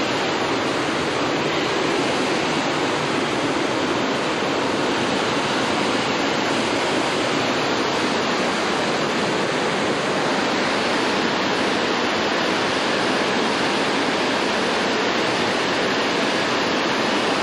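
Water rushing steadily into a canal lock chamber through the upper gates as the lock fills: an even, unbroken hiss of falling, churning water.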